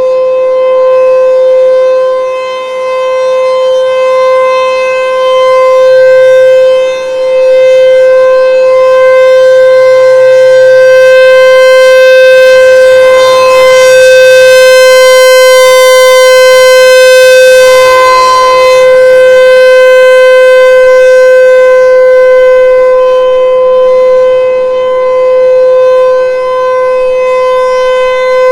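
American Signal ASC T-128 electromechanical outdoor warning siren sounding the steady alert signal of its monthly test, holding one pitch without rising or falling. The sound grows louder and brighter about halfway through as the rotating horn turns toward the listener, then eases off.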